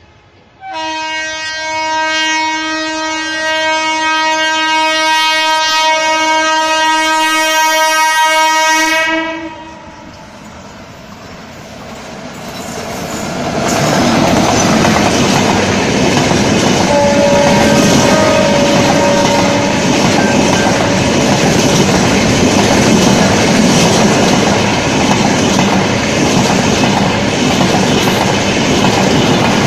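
WAP1 electric locomotive sounding one long horn blast of about eight seconds as it approaches. The locomotive and its double-decker coaches then pass close by: a loud, steady rushing noise with wheels clattering on the rails.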